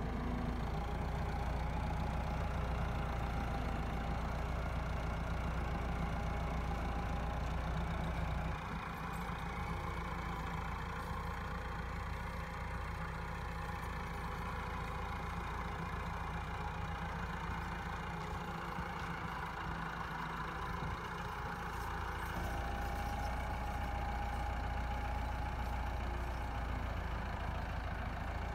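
Massey Ferguson MF375 tractor's four-cylinder diesel engine running steadily while reversing a loaded sugarcane trolley, a little quieter through the middle stretch.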